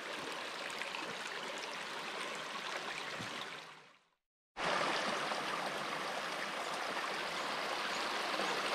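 Small shallow creek running and trickling over stones, a steady sound of flowing water. It fades out a little before halfway, breaks off for a moment, then comes back louder and holds steady.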